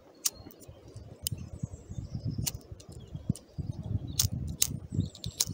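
Fishing reel clicking in scattered, sharp ticks while a hooked wels catfish is being played, over a low rumbling.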